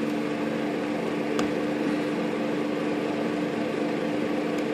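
Steady machine hum with a constant tone in the room, with one light click about a second and a half in.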